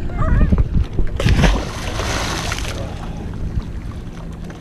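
A large jack crevalle dropped off a seawall hits the water with a splash about a second in, the splashing fading out over about a second and a half, with wind noise on the microphone.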